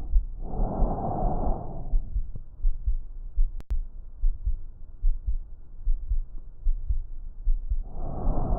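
Simulated chest auscultation: low heartbeat thumps repeating throughout, with a rushing breath sound about half a second in that lasts under two seconds and another starting near the end.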